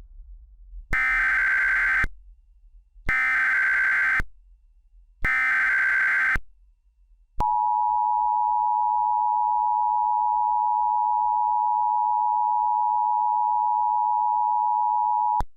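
Emergency Alert System SAME header: three buzzy bursts of digital data, each about a second long, with a short gap between them. Then the EAS two-tone attention signal, 853 and 960 Hz sounding together, held steady for about eight seconds before cutting off.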